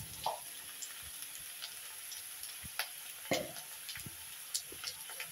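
Potato slices and onions frying in oil in a kadai: a steady soft sizzle, with a few scrapes and knocks as they are stirred, the loudest about three seconds in.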